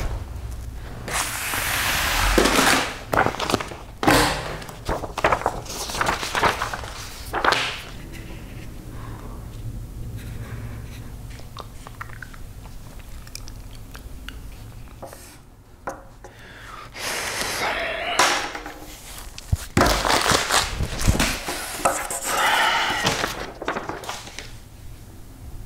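Sheets of paper rustling and being shuffled and tossed, and a plastic food package crinkling, in short bursts with quieter gaps between, over a low steady hum.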